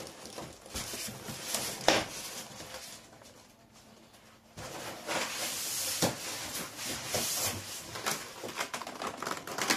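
Unpacking noise: rustling and handling of packaging, with two sharper knocks about two and six seconds in and a quieter pause midway.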